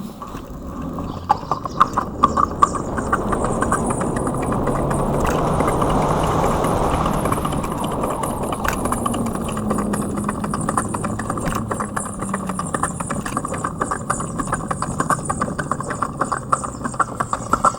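Artificial riding sound from an EUC World AVAS sound pack on a Kingsong 16X electric unicycle: a steady sound laced with a quick run of regular clicks, with a low hum that rises a little in pitch about nine seconds in and holds for a few seconds.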